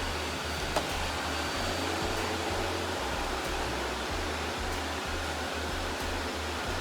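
Robot vacuum running: a steady whir from its motor, with a single click a little under a second in.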